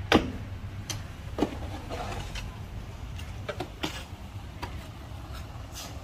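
Diesel engine of heavy earthmoving machinery running with a low steady rumble, with sharp knocks and clanks every second or so, the loudest right at the start.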